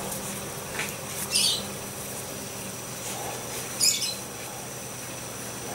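A bird chirping twice: short high calls falling in pitch, about two and a half seconds apart.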